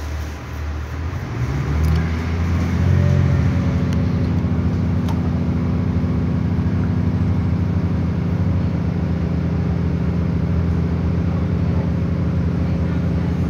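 Irish Rail 29000 class diesel multiple unit pulling away, heard from inside the carriage: the underfloor diesel engine rises in pitch over the first few seconds, then runs as a steady low drone.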